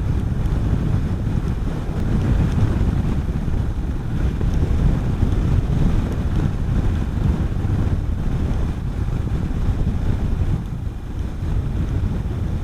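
Wind buffeting the microphone over the steady running of a Honda CB400SS's single-cylinder engine, heard from the bike while riding.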